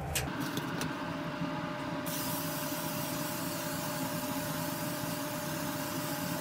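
WD-40 aerosol can spraying through its straw nozzle onto a rusty steel bar: a steady hiss that starts about two seconds in, after a click as the can is picked up.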